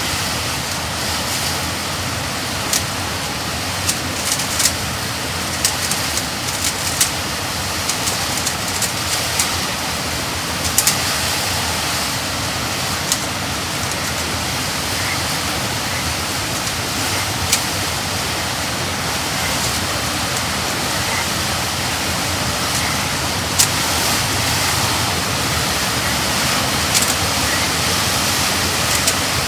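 Steady roaring noise of hurricane wind and rain buffeting the microphone, with scattered short sharp clicks through it.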